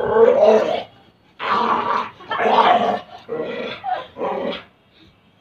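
Pet dog barking, five loud barks in a row over about four and a half seconds.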